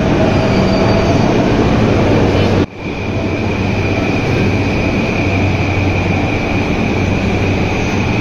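Subway train running, a dense steady rumble with a low hum. It breaks off abruptly for an instant about two and a half seconds in, and after that a steady high whine sits over the rumble.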